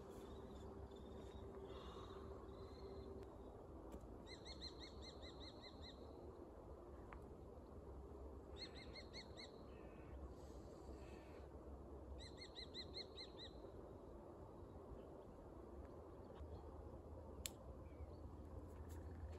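A bird calling three times, about four seconds apart, each call a quick run of repeated high notes lasting about a second and a half, over faint, quiet outdoor background.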